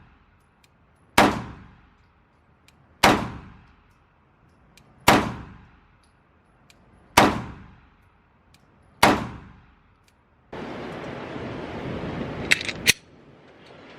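Five 9mm Glock 19 Gen 5 pistol shots, fired slowly about two seconds apart, each ringing off in the reverberant indoor range. Then a steady noise starts, with two sharp clicks near the end.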